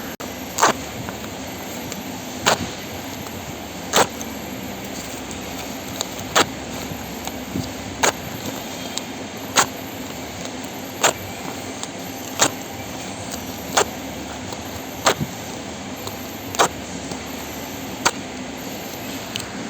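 Printed barcode labels torn off one after another: a short, sharp rip about every one and a half seconds, over a steady low hum.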